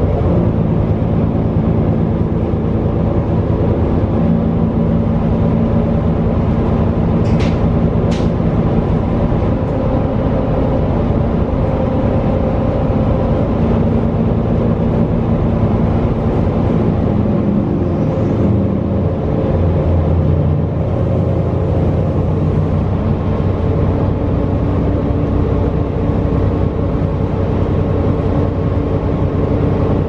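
Cummins L9 inline-six diesel engine with Allison B400R six-speed automatic of a New Flyer XD40 bus running under way, heard inside the rear of the cabin, its pitch stepping up and down several times. Two sharp clicks about seven and eight seconds in.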